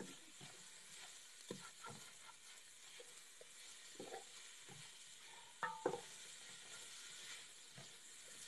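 Diced peppers, onion and garlic frying in butter in a stainless steel pot, a faint sizzle, while a spatula stirs and scrapes the pan bottom; two louder knocks of the spatula against the pot about two-thirds of the way through.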